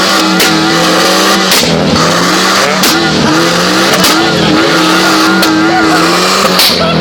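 BMW E30's M10B18 1.8-litre four-cylinder engine held at high revs through its factory exhaust. The engine note wavers and stumbles, with a sharp crack about once a second as it misfires.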